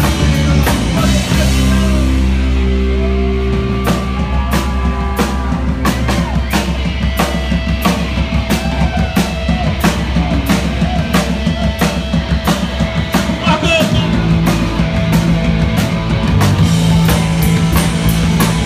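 Rock band playing live and loud: a drum kit with rapid drum and cymbal hits over electric guitar.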